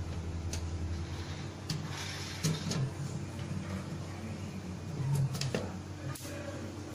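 A screwdriver undoing the screws of a metal cover plate on an air-conditioner outdoor unit, with scattered light clicks and scrapes. A steady low hum runs underneath.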